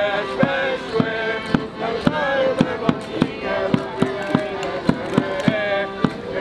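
Music with a steady beat of sharp percussive strikes, about three a second, under a melody.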